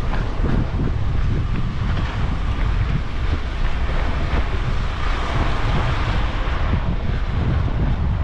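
Wind buffeting the microphone of a camera carried at a run: a steady low rumble with a rushing hiss that swells about five seconds in.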